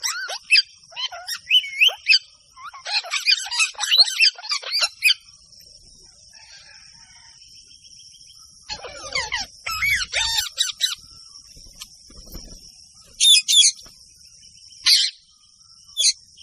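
Parrots chirping and squawking in quick runs of short calls. The calls are thick for the first five seconds, come again about nine to eleven seconds in, and then give a few single calls near the end. A steady high-pitched whine runs underneath throughout.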